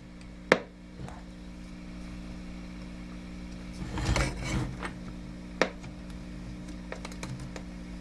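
EICO signal tracer's speaker putting out a steady low hum and background noise while its RF probe rests on a tube pin, with sharp clicks about half a second in and near six seconds from the probe tip touching, and a brief rustle around four seconds.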